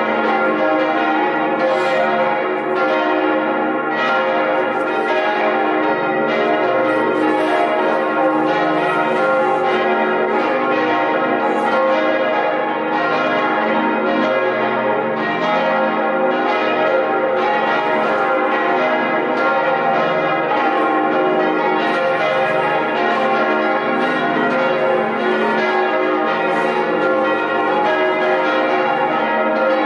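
Several church bells ringing together, their strikes overlapping in an irregular, continuous peal over a dense hum of ringing tones.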